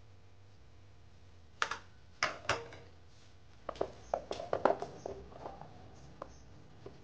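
Kitchen utensils and containers being handled: a run of sharp knocks and clatters, some briefly ringing, bunched from a couple of seconds in to about two-thirds through, over a faint steady hum.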